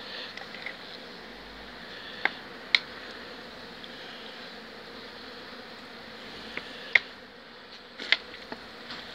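Honeybees buzzing steadily over the open frames of a hive, with a few sharp clicks about two seconds in and again near seven and eight seconds.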